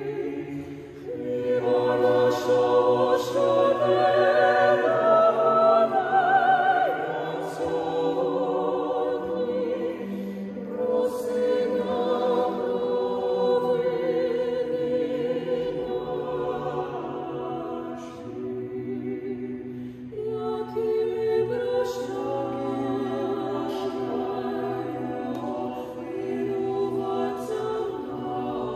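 A small choir of mixed women's and men's voices singing a cappella in several parts, holding sustained notes with vibrato.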